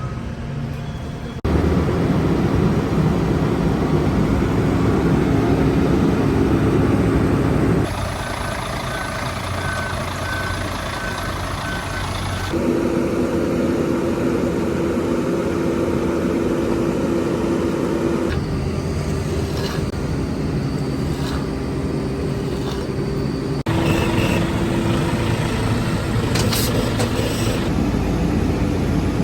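Diesel engines of heavy road-building machinery running steadily, in several short stretches that change abruptly every few seconds. A regular beeping alarm sounds faintly from about 8 to 12 seconds in.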